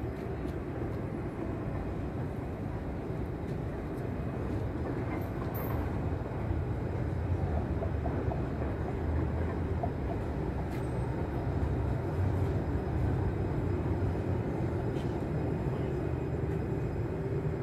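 Tram running on its rails: a steady low rumble that grows a little louder in the middle.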